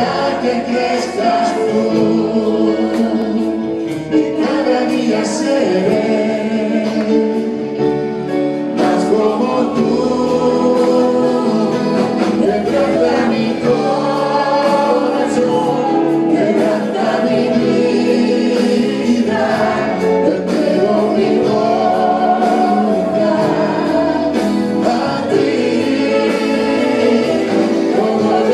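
Live gospel song sung as a duet by a woman and a man into microphones, backed by keyboard and electric guitar.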